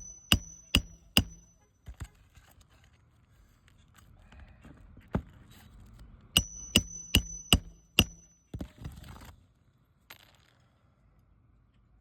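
Hammer strikes on metal during a roof shingle repair, each blow leaving a short high ring: a quick run of about four blows at the start, a single blow about five seconds in, then another run of about six blows.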